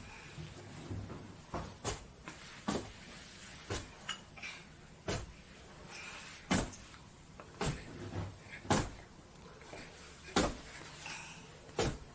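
A series of sharp knocks or taps, about ten in all and spaced roughly a second or a second and a half apart, unevenly.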